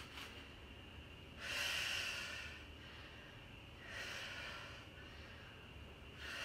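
A woman breathing hard through a set of kettlebell goblet squats, with a loud exhale about every two and a half seconds, one per rep.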